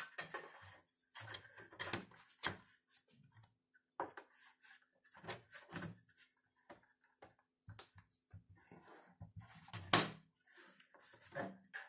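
Irregular clicks, knocks and short scrapes of black sheet-metal trim pieces being slid and pressed into place by hand around a stovepipe ceiling support box, with one sharper knock near the end.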